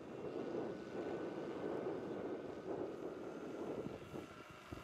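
Large electric-powered scale model Hughes 500 RC helicopter in flight: the rotor blades give a fluctuating whooshing rush, with a faint steady high whine above it. The sound eases slightly near the end.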